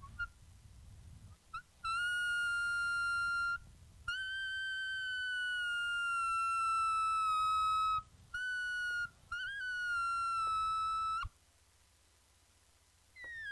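Rubber balloon deflating, air squealing out through its stretched neck: a high, whistle-like squeal in several runs with short breaks between them, the longest about four seconds with its pitch slowly sagging, after a few brief chirps.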